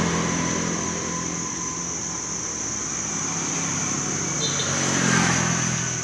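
Engine of a passing road vehicle, growing louder and rising in pitch to a peak about five seconds in, over a steady high-pitched whine.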